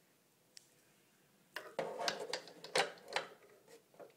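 Glass nail polish bottles clinking and clattering as they are handled and sorted through. A quick run of clicks starts about a second and a half in, with a sharper knock at the end.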